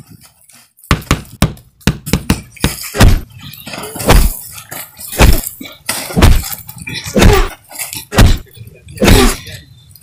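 Fight-scene punch sound effects: a quick flurry of sharp hits, then heavy punches landing about once a second.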